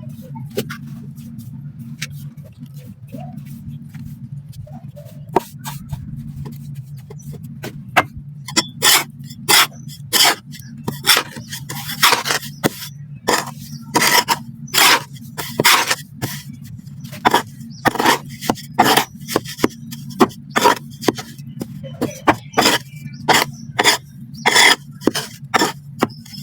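Clumps of black sand crumbling in a run of short gritty crunches, about one or two a second, starting about eight seconds in and coming faintly before that. A steady low hum runs underneath.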